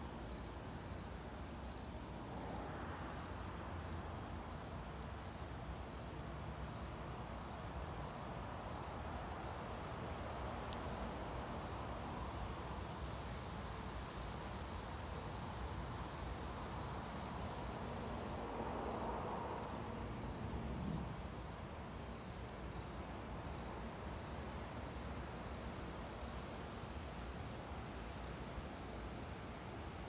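Crickets chirping in an even, regular rhythm, about two chirps a second, over a continuous high insect trill and a soft low background hiss.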